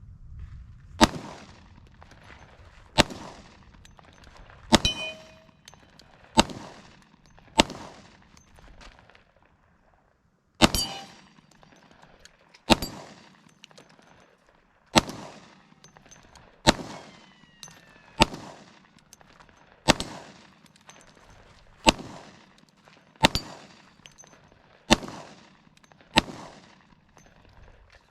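Sig Sauer P320 X-TEN pistol firing 10mm Auto: fifteen single shots about one and a half to two seconds apart, with a pause of about three seconds after the fifth, each shot followed by a short fading tail.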